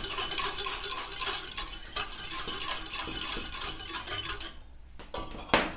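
Wire whisk stirring a still-thin, milky cream emulsion in a stainless steel bowl, its wires scraping and clinking quickly against the metal, stopping a little after four seconds in. A single sharp clink near the end.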